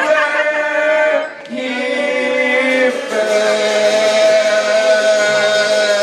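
Voices singing long held notes in harmony, with a short break about a second and a half in and a new chord held from about halfway on.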